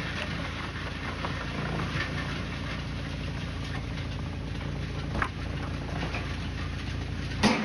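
Machinery engine running steadily at a low, even pitch, with two sharp knocks, one about five seconds in and a louder one near the end.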